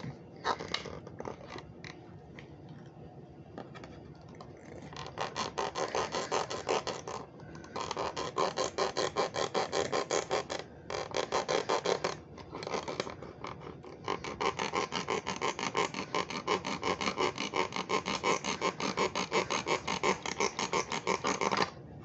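A steak knife sawing fast back and forth at the rubber bands that hold a die-cast toy car in its packaging. After some faint handling clicks, it makes an even, rapid scraping that starts about five seconds in and runs with a few brief pauses until shortly before the end.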